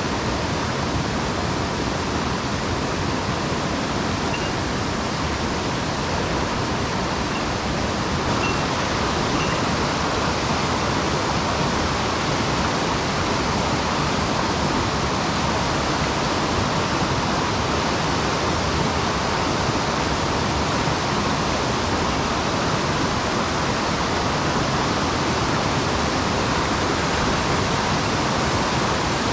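Mountain stream water rushing steadily over rocks, a constant even roar of flowing water. A few faint, short high chirps sound in the first third.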